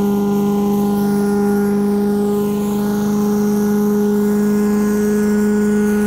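Delux Tornado 4800 vacuum recovery system running with a steady, even hum, sucking up the last of the wash water through its hose and boom.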